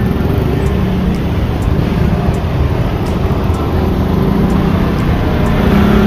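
Slow, close road traffic: a large bus's diesel engine running as it creeps across a level crossing, among cars and motorcycles, steady throughout.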